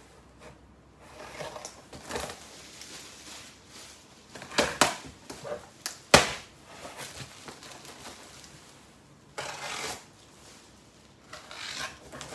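Cardboard boxes being rummaged through and handled: intermittent rustling and scraping, with a few sharp knocks around five and six seconds in.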